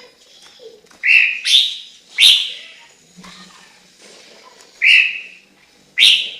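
Chinese hwamei singing: loud, clear whistled notes, three in quick succession, then two more after a pause.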